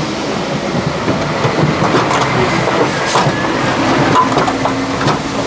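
Knocking and clattering on the metal livestock trailer and its ramp as a calf is handled out through the door. A steady mechanical drone runs underneath.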